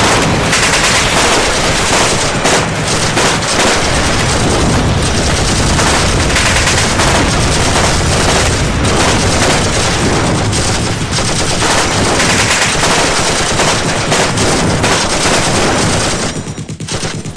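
Loud, dense automatic gunfire, many rapid shots overlapping without a break, easing off about sixteen seconds in.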